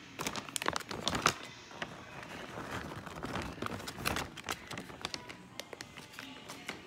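Plastic bag of shredded cheese crinkling and rustling as the cheese is shaken out and patted over the dish by hand, a dense run of crackly clicks that thins out after about four seconds.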